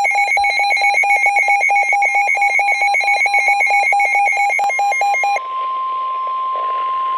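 Emergency Alert System attention tones for a severe thunderstorm warning. A rapid electronic beeping, about seven beeps a second, changes about five seconds in to a steady single tone.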